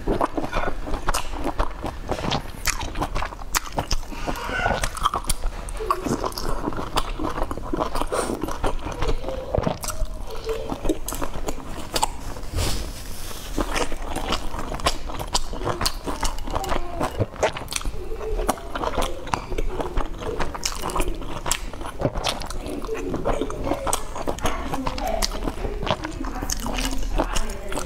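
Close-miked chewing of soft boiled dumplings: a dense run of wet mouth clicks and smacks with each bite.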